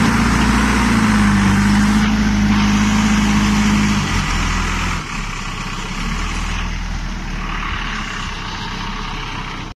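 JCB backhoe loader's diesel engine running hard with a steady drone, its note dropping to a lower, quieter run about four seconds in.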